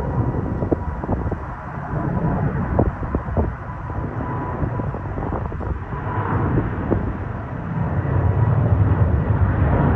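Jet airliner engines rumbling, with gusty wind buffeting the microphone; a faint steady whine sits over the rumble, and the rumble grows louder over the last couple of seconds.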